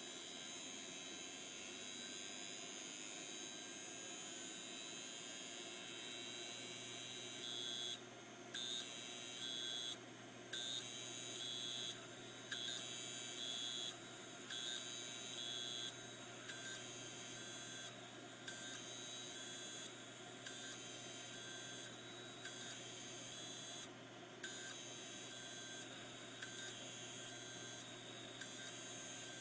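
Hitachi Deskstar hard drive beeping: short high beeps repeating roughly every one and a half to two seconds, starting about seven seconds in, over a steady whine. The beeping is the spindle motor failing to turn the platters because the heads are stuck to them (stiction).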